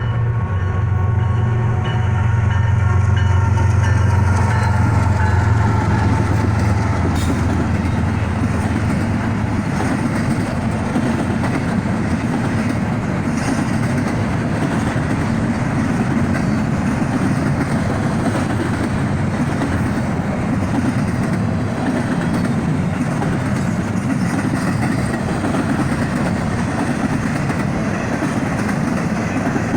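Freight train rolling past: a steady low engine drone for the first several seconds, then the continuous rumble and clatter of railcars going by.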